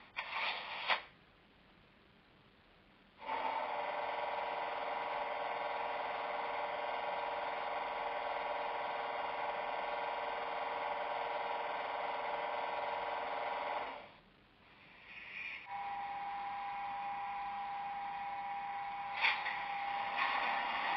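Sound decoder of a Piko H0 class 141 electric locomotive model, playing the locomotive's standstill sounds through its small onboard loudspeaker. A few short hissing bursts come at the start. About three seconds in, a steady electric running hum with a hiss begins and cuts out at around 14 seconds. It then returns as a steadier single-tone hum, with a brief burst near the end.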